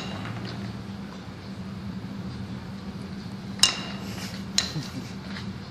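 Two sharp metallic clinks with a brief ringing, about a second apart, over a steady low hum.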